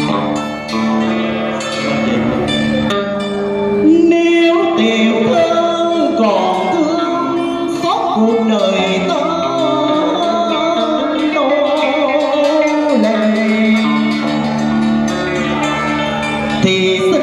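Cải lương song: a man sings into a microphone, accompanied by plucked electric guitar.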